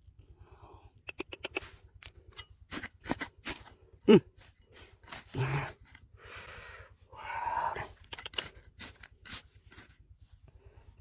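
Digging in stony river gravel: stones and a tool clicking and knocking against each other, with scraping in between and one loud short sound about four seconds in that drops in pitch.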